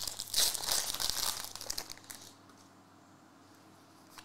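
Foil wrapper of a Topps Formula 1 trading-card pack crinkling as hands peel it open, for about two seconds.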